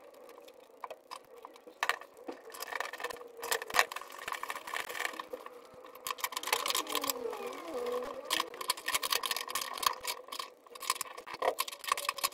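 Hand tools working on a car's metal horn mounting bracket: many sharp clicks, taps and scrapes of a screwdriver and spanner on metal, coming in irregular runs over a faint steady hum.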